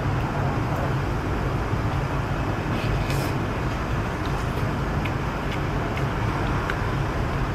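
Steady low background rumble, with a few light clicks of a spoon and chopsticks against a ceramic soup bowl.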